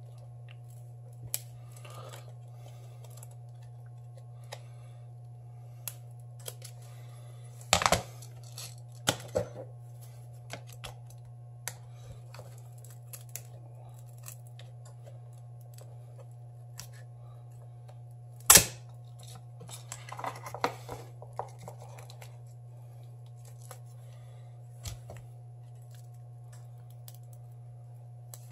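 Thin metal pry blade scraping and clicking against the glass and frame of a Samsung Galaxy S7 Edge as its strongly glued display is pried up: scattered scrapes and sharp clicks, the loudest about eighteen seconds in, with a run of scraping a couple of seconds later, over a steady low hum.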